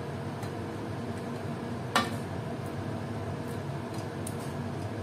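A steel ladle knocking sharply once against steel cookware while food is spooned from a kadai into a steel bowl, with a few faint clinks around it over a steady background noise.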